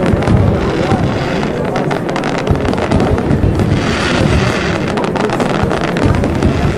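Aerial fireworks bursting in a dense barrage: a continuous run of crackles and bangs over a deep rumble of explosions.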